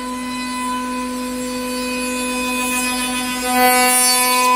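5-axis CNC router's HSD spindle running at speed with a steady high whine, while machining a wooden chair part. It grows louder, with more hiss, about three and a half seconds in.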